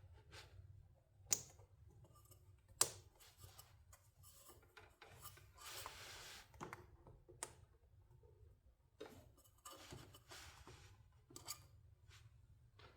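Faint handling of small plastic wire clips being fitted over a cord. There are two sharp clicks about a second and a half apart near the start, then scattered rustling and scraping.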